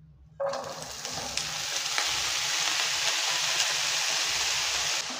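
Wet, water-soaked potato cubes tipped into hot oil in a non-stick frying pan: a sudden sizzle starts about half a second in and holds steady, easing slightly near the end.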